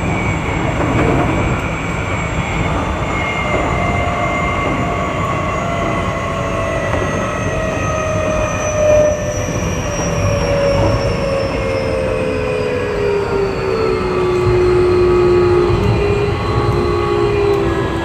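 Keio 8000 series electric train running, a steady rumble of wheels on rail. From about four seconds in, the traction motors' whine glides steadily down in pitch, levelling off near the end as the train slows.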